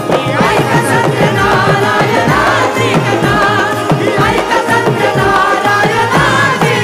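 Live Indian devotional-song accompaniment: instrumental music with a quick, steady hand-drum beat under a melody line.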